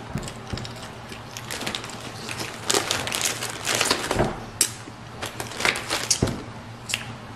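Crinkling and crackling of the plastic wrap and tray of a Peeps marshmallow box being torn open, with irregular crackles throughout and a few soft thumps.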